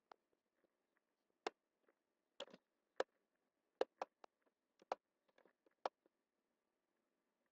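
Computer mouse buttons clicking: about a dozen short, sharp clicks at irregular intervals, some in quick pairs, over near silence.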